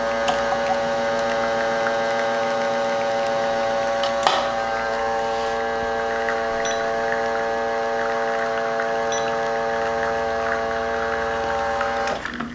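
Espresso machine pump humming steadily while pulling a shot through a grind the owner thinks may be a little too tight, then cutting off near the end. There is a single click about four seconds in.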